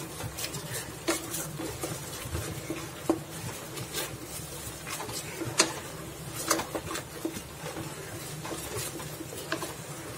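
Wooden spatula stirring and scraping a thick mustard and coconut paste around a kadai as it fries, with irregular scrapes and taps against the pan.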